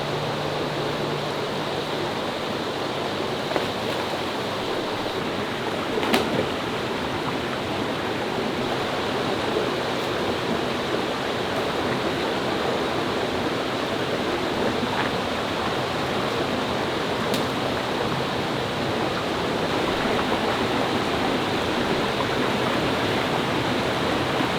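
Steady rushing of water from a mountain waterfall and stream, with a few faint clicks, the clearest about six seconds in.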